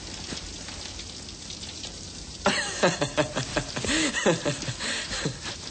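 Steady hiss of heavy rain, then about halfway through a man starts laughing loudly over it.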